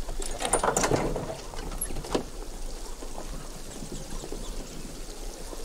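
Latch rattling and a wooden crate door being swung open: a cluster of clatter and creaks in the first second, then a single knock about two seconds in.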